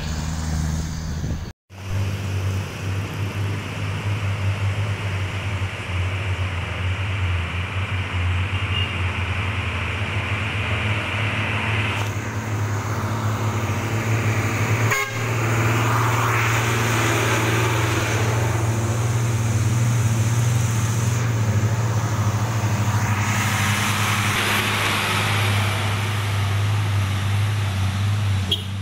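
Road traffic: a steady low engine drone from loaded cargo trucks driving by, with road noise. The sound cuts out for a moment about a second and a half in.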